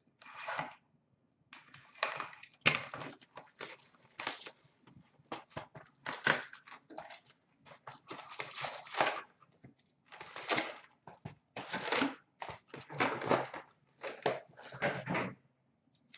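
Wrappers of 2017-18 Upper Deck SP Authentic hockey card packs being torn open and crinkled by hand, in short irregular bursts, with cards handled between them.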